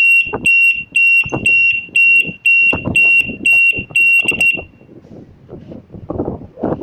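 Motorcycle RFID anti-theft alarm beeping a shrill, steady tone about twice a second, cutting off about four and a half seconds in. It sounds while the bike is immobilised, so the engine won't start by kick or electric start.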